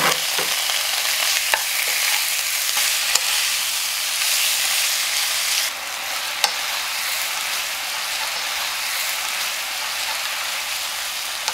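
Thinly sliced pork neck, onion and green onion sizzling in an oiled frying pan as they are stir-fried with a wooden spatula, with a few light clicks of the spatula against the pan.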